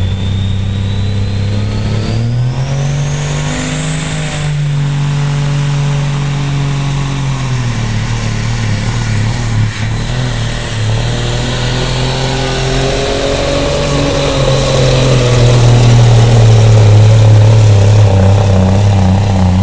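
Semi tractor's diesel engine at full power under heavy load, dragging a weighted pulling sled. Its pitch climbs about two seconds in while a thin high whine rises over the first four seconds, and it grows louder near the end.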